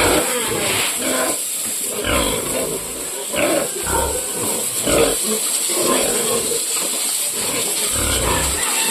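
Pigs grunting in a run of irregular, loud calls, over a steady high hiss.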